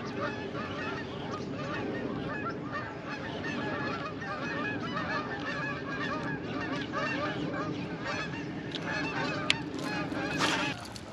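A flock of birds calling, many short overlapping calls, with a few sharp clicks near the end.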